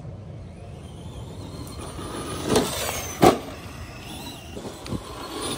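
Traxxas Bigfoot electric RC monster trucks driving over rough ground, with tyre noise and a faint high electric-motor whine. Two sharp knocks come a little after two and a half and about three seconds in.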